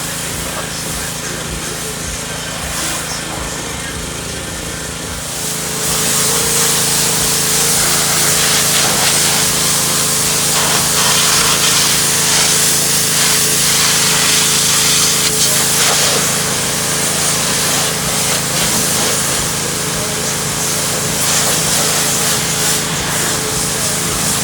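Pressure washer spraying, its motor running steadily underneath. The spray grows louder about five seconds in, and a steady whine joins it.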